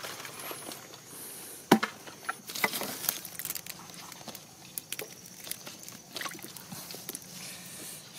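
Irregular small clicks, pops and crackles from wet mangrove mud and shallow water, with one sharp, loud click a little under two seconds in.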